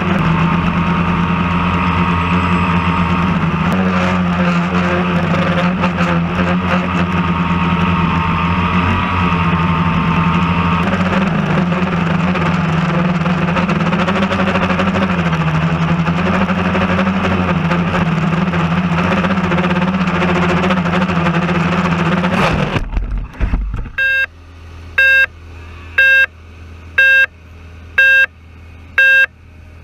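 Quadcopter drone's motors and propellers running with a steady hum that wavers in pitch. About three quarters of the way through the motors cut out abruptly, and the drone then beeps about once a second.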